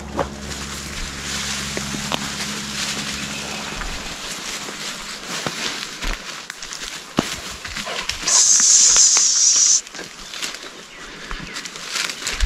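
Footsteps and the crackle of twigs and leaf litter underfoot while pushing through bush undergrowth, with a low rumble for the first few seconds. About two-thirds of the way in, a loud high hiss lasts about a second and a half and cuts off suddenly.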